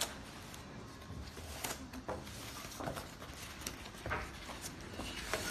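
Irregular rustling and light knocks of something being handled, a few short strokes a second apart.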